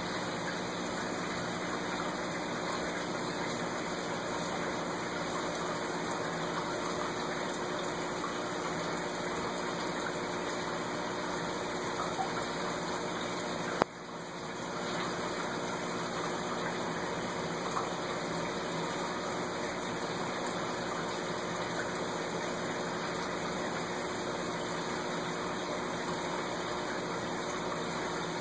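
Aquarium filter and pump running steadily, water rushing with a low steady hum. A single sharp click about halfway through.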